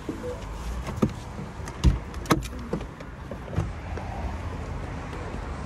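Car door being opened from inside: a few sharp clicks and knocks from the handle and latch, the loudest a little over two seconds in, and a thump as the occupant climbs out. A low steady rumble follows once the door is open.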